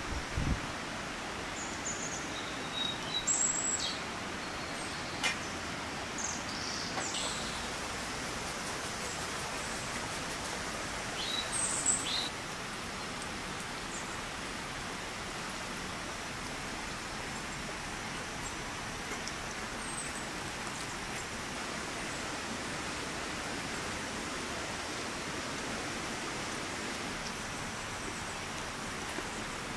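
Steady hiss of light rain falling outdoors, with a few brief high clinks in the first twelve seconds.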